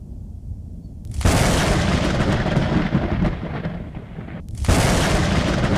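Thunder: a low rumble building, then a loud crack about a second in that rolls on. It breaks off for a moment near the end and comes in again just as suddenly.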